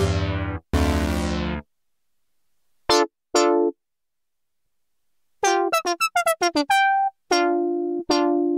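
Novation Circuit Tracks synth engine playing a preset: two held chords, a pause, two short notes, then a quick run of short notes from about halfway and single repeated notes near the end.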